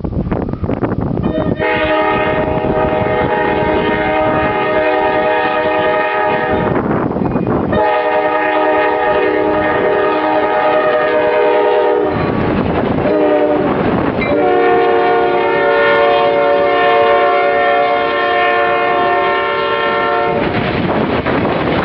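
Diesel freight locomotive's multi-chime air horn sounding three long blasts, the last the longest, over the rumble of the train and wind on the microphone.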